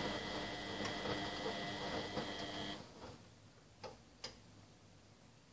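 Beko WMB 714422S front-loading washing machine running at the start of its wash, a steady mechanical sound with a high whine that cuts off about three seconds in. Two short clicks follow a second later.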